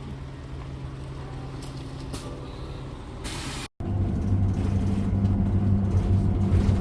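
Motor engine running with a steady low drone. About three seconds in there is a brief hiss, then the sound cuts out for an instant and comes back as a louder, deeper engine drone.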